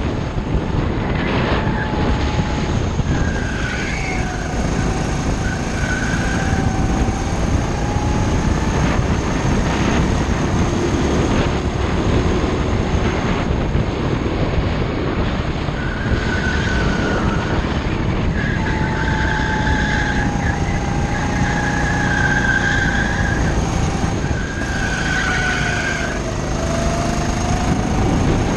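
Rental go-kart engine running hard under the driver, heard from on board; its pitch drops and climbs again as the kart slows for corners and accelerates out of them.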